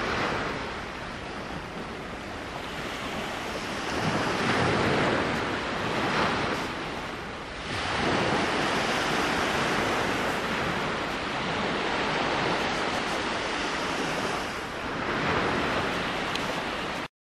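Small waves washing onto a pebble shore, swelling and ebbing several times, with wind on the microphone. The sound cuts off suddenly near the end.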